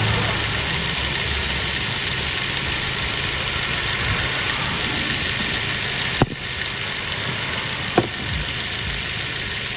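Ford Focus engine idling steadily, with two sharp clicks about six and eight seconds in.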